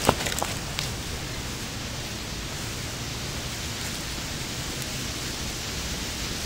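Steady, even hiss of background noise, with a few faint clicks and rustles in the first second as something is picked up off the ground.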